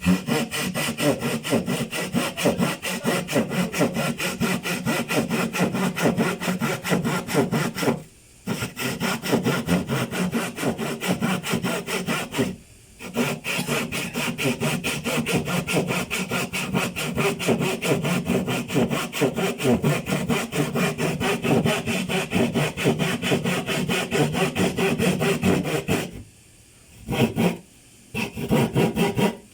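Handsaw cutting through wood in quick, steady back-and-forth strokes. It stops briefly twice, then pauses near the end with one short flurry of strokes.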